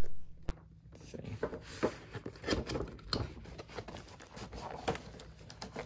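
Cardboard box and clear plastic packaging being handled and pulled open by hand: scattered light rustles, scrapes and taps.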